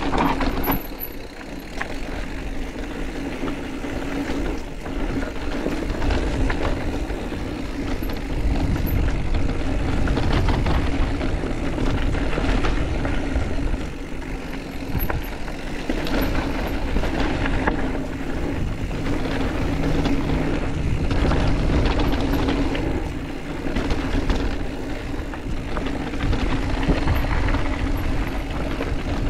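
Mountain bike riding on a trail: steady wind rush on the microphone with the tyres rolling and the bike rattling over bumps.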